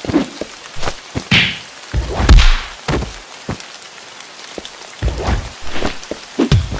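A steady rain-like hiss with a string of heavy thuds and sharp knocks, plus a couple of brief rushing swells.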